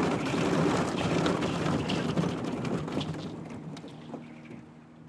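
Small motorboat running through thin skim ice: a low motor hum under a crackling, rain-like patter of ice breaking against the hull, fading out over the last two seconds.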